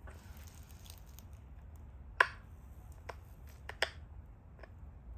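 Sharp clicks of small flakes snapping off a stone Dalton point during pressure flaking: one louder click about two seconds in, then three fainter ones over the next two and a half seconds.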